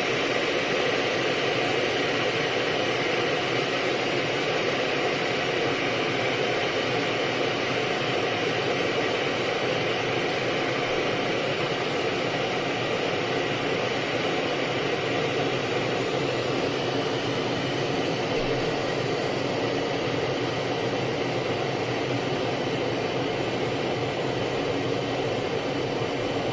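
Breville Edge electric kettle, just over half full, heating water toward the boil: a steady, quite noisy rushing hiss.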